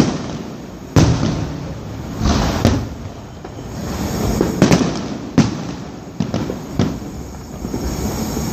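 Fireworks display: aerial shells bursting with sharp bangs at uneven intervals, about seven in a few seconds, with rumbling and crackling between them.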